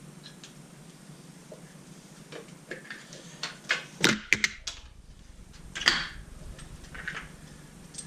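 Scattered metallic clicks and clinks of hand tools and bolts being handled during an engine teardown. They are sparse at first, busiest about four seconds in, with another clatter near six seconds.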